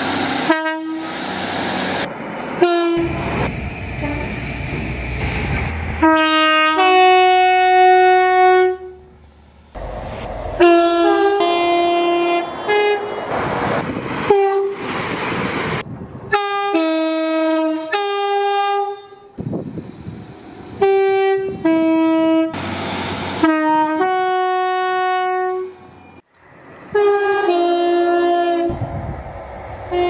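Two-tone horns of British diesel multiple-unit trains, including a Class 150 Sprinter and Class 185 units, sounding a series of short blasts that step between a higher and a lower note. Between the blasts comes the rumble of a train running through the station.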